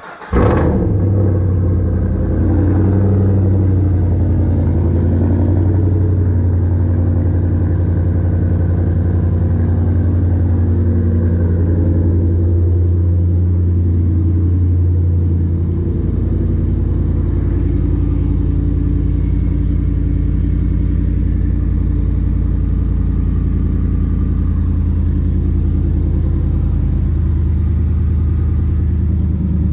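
Ram 1500's 5.7 Hemi V8 firing up through freshly fitted catless long-tube headers, then idling loud and steady with a deep low exhaust note. The idle note shifts slightly about halfway through.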